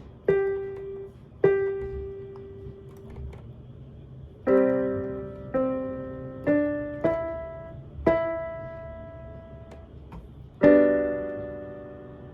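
Electronic keyboard in a piano voice, played slowly by a beginner: single notes and chords struck one at a time with pauses between them, each left to ring and fade.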